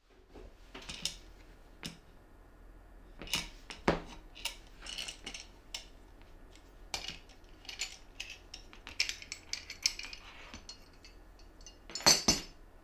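Metal corner clamp being handled: scattered clicks, clinks and rattles as its screw handle is turned and its jaws are loosened to free a plywood corner, with two louder clatters near the end.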